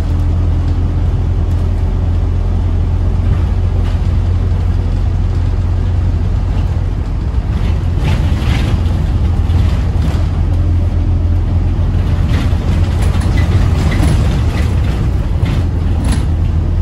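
Scania N230UD double-decker bus under way, heard from the upper deck: a steady low drone from its five-cylinder diesel engine under road noise. Short rattles and knocks from the body and fittings come more often in the second half.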